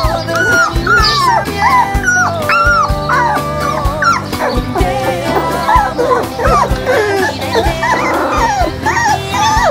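Two-week-old Labrador puppies crying, many short rising-and-falling whimpers overlapping one another, over background music with a steady beat.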